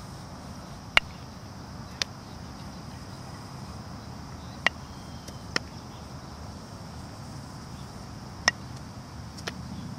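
Sharp knocks of baseball practice in three pairs about a second apart: a bat hitting ground balls, then the balls landing in the kneeling fielders' gloves.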